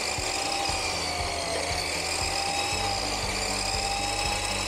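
Dekton DK-CS2400 355 mm abrasive cut-off saw's 2400 W brushed motor running at full speed with the blade spinning free, not cutting, its trigger held on: a steady whine with several high tones that waver slightly in pitch.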